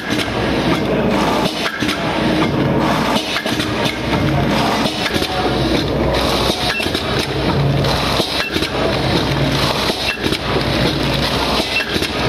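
Automatic vertical form-fill-seal pouch packing machine running: a steady low motor hum under a busy clatter of clicks and knocks from the film feed, sealing jaws and cutter. In the second half there are short high beeps about once a second.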